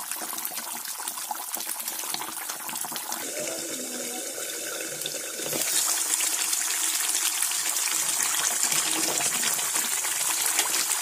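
Fish curry boiling hard in a kadai over a high gas flame: steady bubbling and spitting, growing louder and hissier about halfway through. The gravy is being reduced to half.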